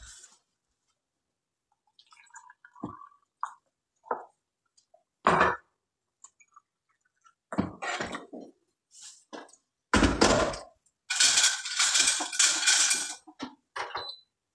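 Kitchenware being handled: scattered clinks and knocks, one loud knock about five seconds in, then a longer busy clatter of dishes and pots near the end.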